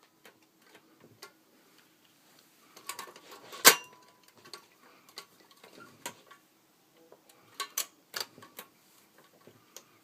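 Scattered mechanical clicks and clacks from a manual typewriter being handled and worked, at an irregular pace, with one sharp clack just under four seconds in and a few more close together near the end.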